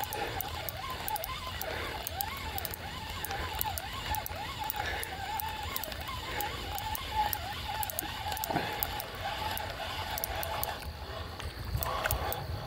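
Fishing reel being cranked to bring in a small bullhead: a wavering whine with fine, rapid ticking.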